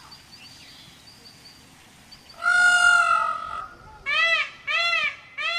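Indian peacock calling: after about two quiet seconds, one longer drawn-out call, then three short rising-and-falling calls in quick succession.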